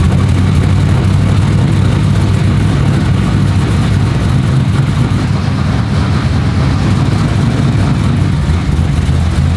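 Street race car's engine running at a steady, loud idle through its newly finished full exhaust, just after being started.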